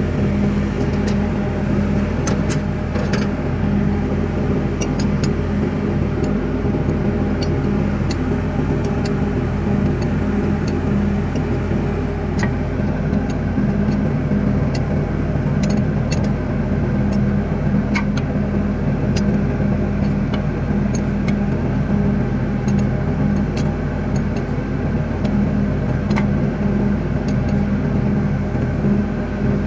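Steady drone of a running engine with a constant low hum, over scattered light metallic clicks of spanners on the fuel transfer pump's fittings.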